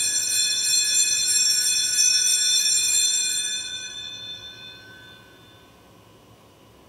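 Altar bells rung at the elevation of the chalice during the consecration: a cluster of high ringing tones that fades out over about four to five seconds.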